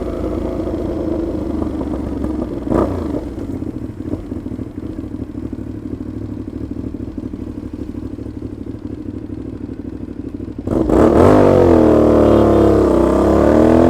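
Aprilia Shiver 750's V-twin running through a nearly open, very loud exhaust, which the rider thinks has play between the silencer and the catalytic converter. It runs steadily at low revs, then is opened up loudly about eleven seconds in, the pitch dipping and then climbing again.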